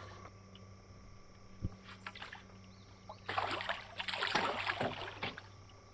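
Water splashing and sloshing against a small boat for about two seconds, starting about three seconds in, over a steady low hum.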